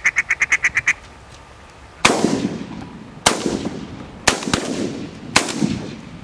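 A duck call blown in a quick run of about eight short quacks, then four shotgun shots roughly a second apart, each with a long fading echo, fired at ducks coming in to the call.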